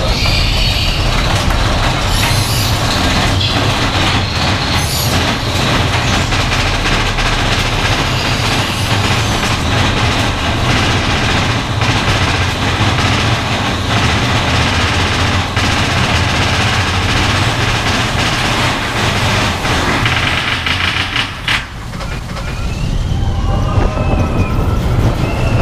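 Big Thunder Mountain Railroad mine-train roller coaster heard from on board: a loud, steady rumble and clatter of the train running along its track. About 21 seconds in the sound dips briefly, then gives way to the coaster heard from beside the track, with a few higher rising and falling sounds over the rumble.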